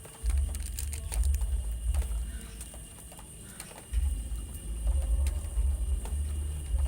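Glass bottle pressed and rolled over seeds to crack them before sowing: a low rumbling in two long stretches with scattered light crackles.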